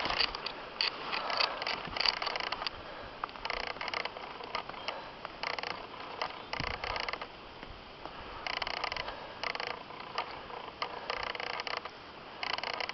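Deep, packed snow crunching and creaking in short bursts, one roughly every second or so, as it is pressed down.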